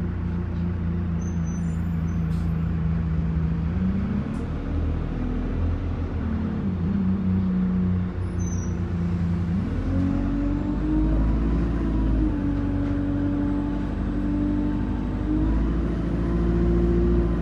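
Bus diesel engine heard from inside the passenger cabin, running at a low steady note in slow traffic. It rises briefly about four seconds in and settles again, then revs up about ten seconds in as the bus pulls away and holds a higher note, with road noise underneath.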